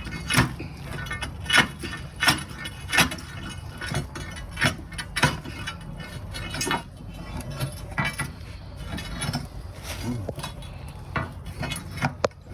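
Irregular sharp knocks and metallic clinks, roughly one every half second to a second, over a steady low rumble.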